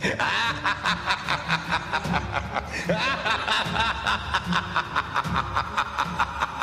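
A person laughing in one long unbroken run of short, even pulses, about four or five a second.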